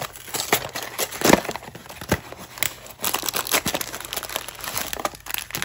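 Plastic wrapper crinkling and crackling as a blind-box figure is unwrapped by hand. The rustling comes in irregular crackles that grow denser about three seconds in.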